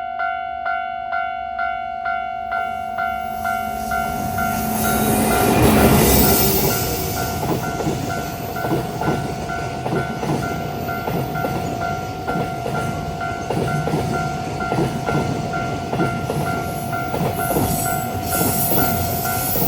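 Japanese level-crossing alarm ringing in a steady two-tone beat of about two strokes a second. About six seconds in, an EF210 electric freight locomotive passes loudest, then its freight wagons clatter over the rail joints while the crossing bell keeps ringing.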